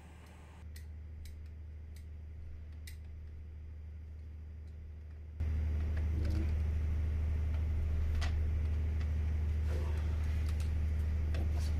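Small scattered clicks and taps of plastic parts being handled as a new closing coil and its wiring connector are fitted into an air circuit breaker, over a steady low hum that suddenly gets louder about five seconds in.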